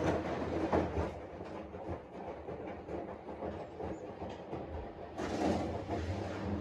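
Washing machine running, its drum turning with a rumbling, clattering rhythm over a low motor hum. It eases off for a few seconds and then picks up again near the end.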